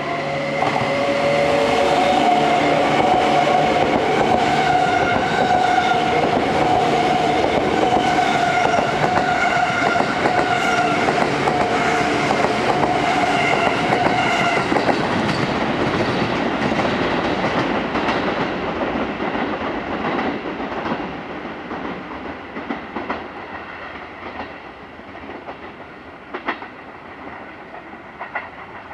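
Seibu 101-series-family electric train passing close by, a steady whine over loud running noise from the wheels on the rails. It fades after the middle as the train moves off, with separate clacks as the wheels cross rail joints and points.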